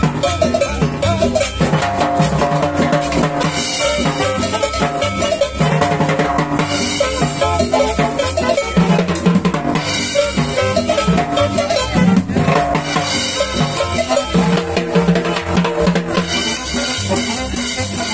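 Salvadoran cumbia played live by a street band: saxophones, a small guitar, hand cymbals and a drum over a steady dance beat, with cymbal splashes coming and going.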